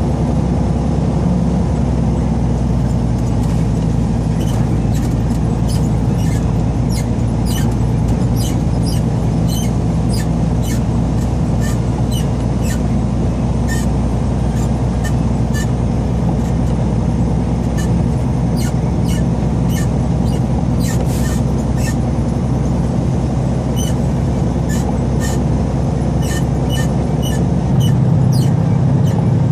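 Semi truck's diesel engine running steadily at highway cruise, heard from inside the cab, with many short high squeaks and ticks scattered over it. The low engine sound grows a little louder near the end.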